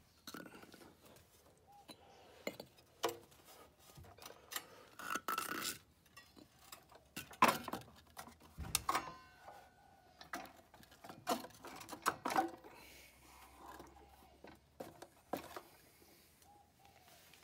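Scattered knocks, clicks and rattles of an electric scooter being handled: its plastic rear fender and metal frame knocking as it is lifted and propped up on a concrete block.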